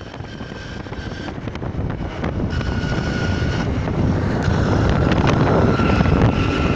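A vehicle driving along the road: engine and road rumble with wind on the microphone, getting steadily louder.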